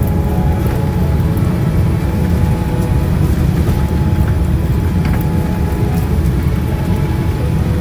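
Airliner cabin noise during landing: a loud, steady low rumble of engines and airflow heard from inside the cabin, with a few faint rattles.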